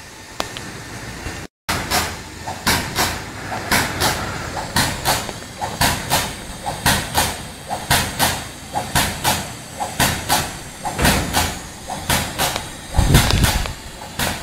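Daheng PG 1500 silicone potting and dispensing machine running: a steady, rhythmic clacking of about three strokes a second, with a louder, deeper burst about thirteen seconds in.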